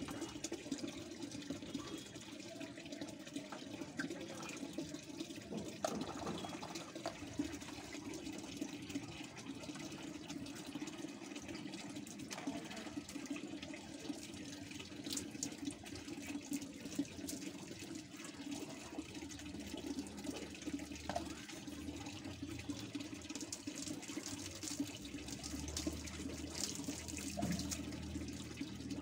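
Water poured from a plastic mug over long hair, splashing and dripping onto a wet concrete floor, over a steady run of water throughout.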